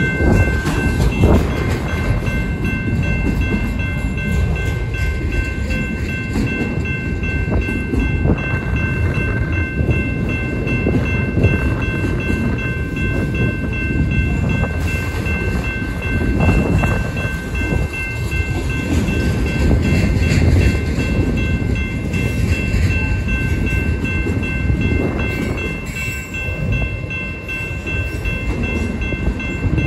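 Autorack freight cars rolling past close by: a steady rumble and clatter of steel wheels on the rails, with steady high-pitched tones over it.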